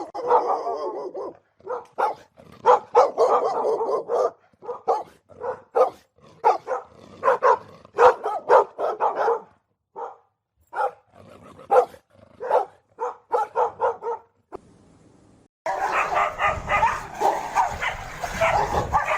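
Dogs fighting: rapid bursts of barking and yelping, one after another. After a pause of about a second, some fifteen seconds in, the fighting comes back denser and more continuous.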